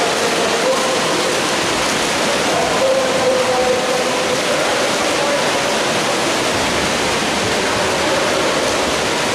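Steady, loud noise of a water polo match at the pool: crowd and splashing water blending into a constant din, with a few drawn-out shouts over it.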